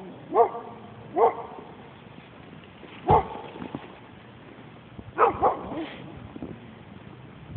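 A dog barking in short, separate barks: one just after the start, one about a second in, one about three seconds in, then a quick run of two or three barks about five seconds in.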